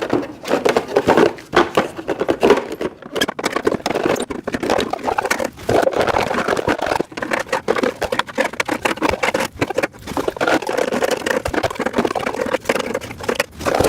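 Storage rack parts being handled and fitted together: a busy, irregular run of clicks, knocks and rubbing, with no pause.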